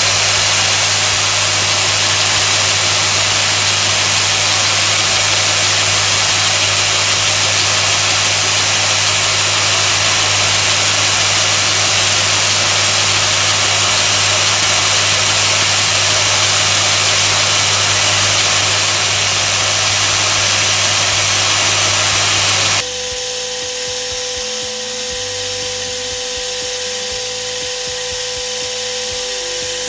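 Toolpost grinder, a small pink stone spun at about 11,000 rpm by a flexible shaft, grinding the inside faces of a spinning lathe chuck's jaws to true them, with a steady loud hiss over the lathe's hum. About 23 seconds in the sound changes suddenly to a quieter, steady whine with a clear note.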